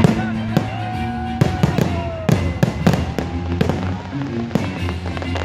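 Fireworks display: aerial shells bursting in a rapid, irregular series of sharp bangs, over music playing underneath.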